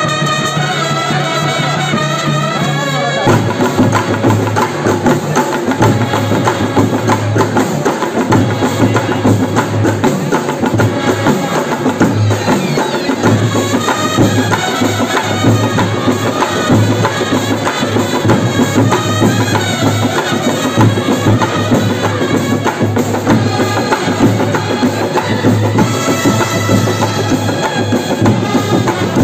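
A Kerala band set, a brass band of trumpets and other horns with drums, playing live. The horns hold long notes for the first three seconds, then the drums come in with a fast, busy beat under the brass.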